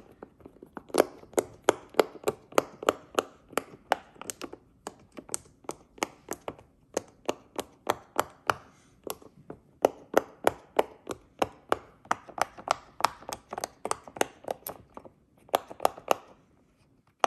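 Silicone pop-it fidget toy having its bubbles pressed one after another: a steady run of sharp pops, about three a second, with a couple of brief pauses.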